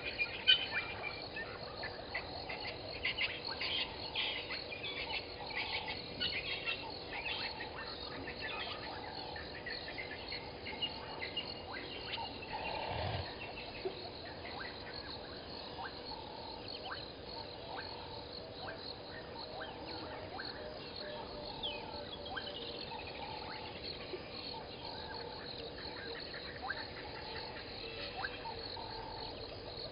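Frogs and insects calling at a waterhole: a continuous chorus of short chirps and ticks, busiest in the first several seconds, with a few bird chirps among them.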